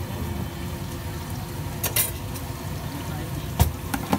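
A steel spoon scooping ragda and clinking against the steel pot and plates, a few sharp clinks with the loudest about three and a half seconds in, over a steady low street rumble.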